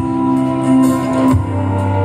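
Loud live pop band music with no singing: held chords over a bass line that steps down to a lower note about one and a half seconds in.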